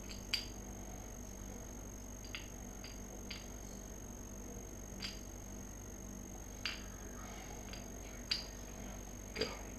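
Scattered light clicks and taps, about nine at irregular intervals, as new variator rollers are slotted into a scooter's variator housing. A steady faint hum runs underneath.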